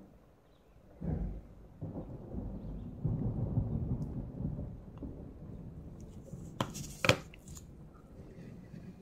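A low rumble for a few seconds, then two sharp knocks close together, the second the louder, as a small work lamp is set down on a desk.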